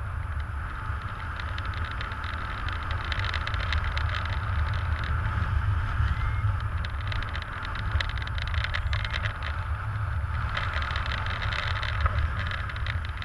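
Airflow buffeting the microphone of a helmet camera on a paraglider in flight: a steady low rumble with a rushing hiss that swells twice and eases.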